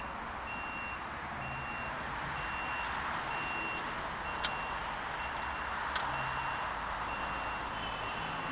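A vehicle's reversing beeper sounding a single high electronic beep about once a second. Two sharp clicks cut in, one about halfway through and another about a second and a half later.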